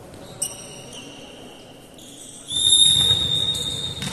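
Volleyball referee's whistle blown once past the middle: a loud, shrill, steady blast of about a second that rings on in the gymnasium. Before it there is a sharp tap and fainter high-pitched squeaks.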